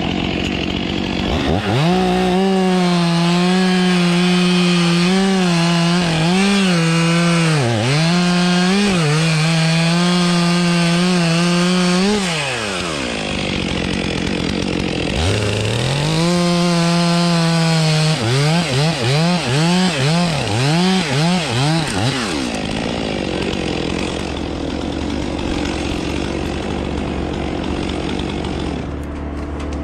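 Two-stroke chainsaw revved to full throttle and held for about ten seconds, its pitch dipping briefly now and then as it cuts, then winding down. It revs up again, holds, then is blipped rapidly about seven times before dropping back to a lower running sound.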